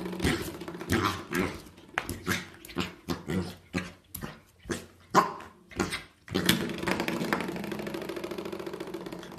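Welsh corgi puppy growling and yapping in play. Short growls and yaps come in quick succession, then about six seconds in a long, steady growl begins that slowly fades.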